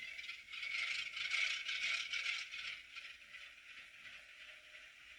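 Recorded GE diesel locomotive startup sound from the ScaleTrains C39-8 model's sound decoder, played through its tiny onboard speaker, so it is thin with almost no bass. A rattling, hissing noise comes in suddenly, is loudest for the first few seconds, then eases to a lower, steady running sound.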